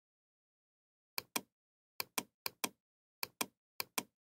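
Computer mouse clicking in quick pairs, five pairs in all, with dead silence between them.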